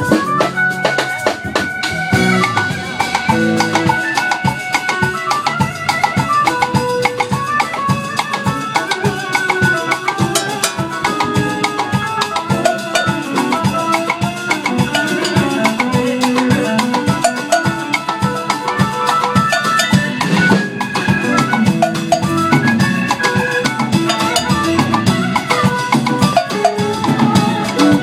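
Live band playing a Latin-style groove, with drum kit and conga drums under a stepping melodic solo line.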